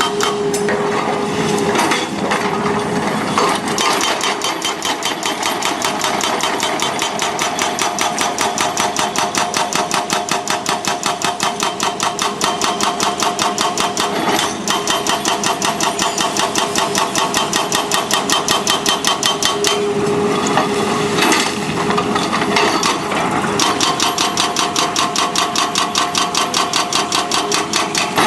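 Excavator at work, its steady mechanical noise carrying a fast, even hammering of about four knocks a second with a steady whine over it.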